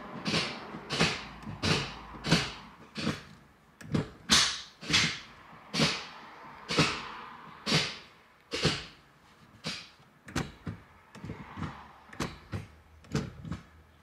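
Honda Civic 6-speed manual gear lever with a 3-way adjustable short shifter, shifted by hand through the gears: a run of sharp clicks and clunks as it snaps into each gear, about one or two a second.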